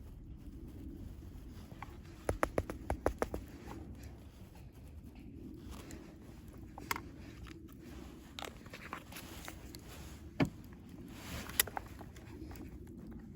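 A quick run of about seven sharp clicks about two seconds in, then scattered single clicks and taps over a low steady background.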